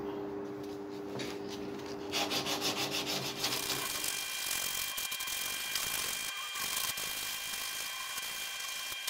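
Wooden knife handle being hand-sanded with a sanding stick: fast back-and-forth rubbing strokes that start about two seconds in and keep going.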